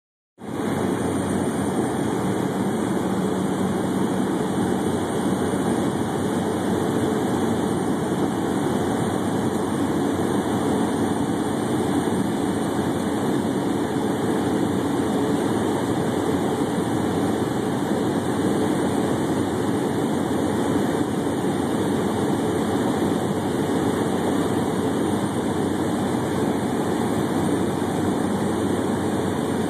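Aircraft engine and rushing air, a steady drone heard from inside the cabin in flight.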